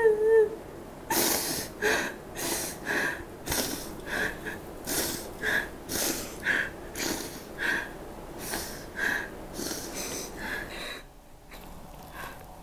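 A woman sobbing. A short, high, wavering wail at the start gives way to a run of gasping, sniffling breaths about twice a second, which die down near the end.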